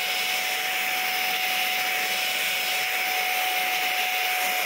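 Vacuum cleaner running steadily, a constant rushing noise with a thin, steady whine from the motor.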